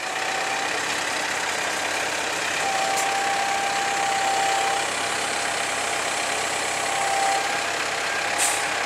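Kubota M135GX II tractor's four-cylinder diesel engine running steadily, with a faint thin whine that comes in about three seconds in and briefly again near seven seconds.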